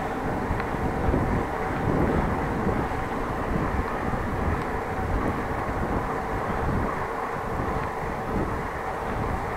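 Steady rumbling noise of a bicycle ride, with wind on the microphone and tyres running on the road, and a few faint ticks.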